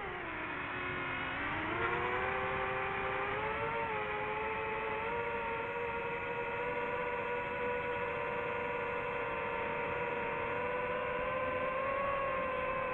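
DJI FPV quadcopter's brushless motors and propellers whining in flight. The pitch drops in the first second as the throttle eases, climbs back over the next few seconds, then holds steady.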